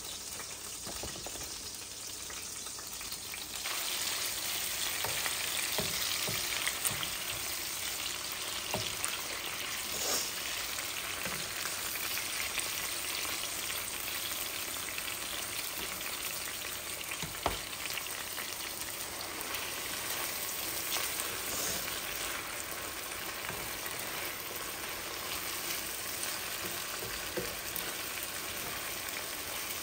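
Meat strips and bell peppers sizzling in hot oil in a frying pan, stirred with a plastic spatula that scrapes and taps now and then against the pan. The sizzle grows louder a few seconds in.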